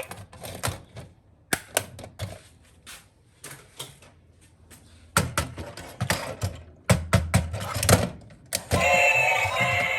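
Hard plastic toy parts clicking, snapping and knocking as they are handled, in irregular taps, sparse for a few seconds and then in quick clusters. Music comes back in near the end.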